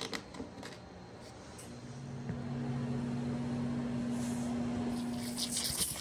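A few clicks and knocks from plastic calf-feeding bottles being handled, then a steady low hum for about four seconds.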